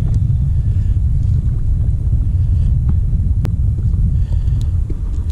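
Wind buffeting the microphone: a steady low rumble, with a sharp click about three and a half seconds in.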